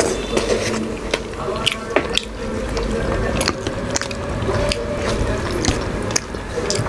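Close eating sounds: wet chewing and lip smacks with many short, irregular clicks, as nihari (beef stew) with luchi is eaten.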